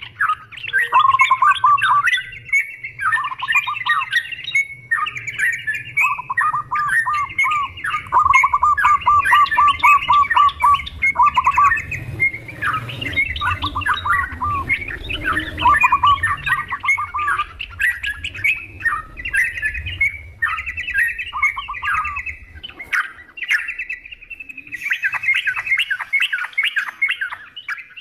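Yellow-vented bulbuls (trucukan) chattering and singing over one another in quick bubbly phrases and fast runs of repeated notes. A low rumble sits underneath and stops a few seconds before the end.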